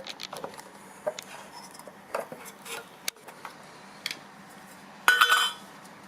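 Metal tin of two-component filler being pried open: scattered small clicks and scrapes, then a sharp metallic clank with a brief ring about five seconds in.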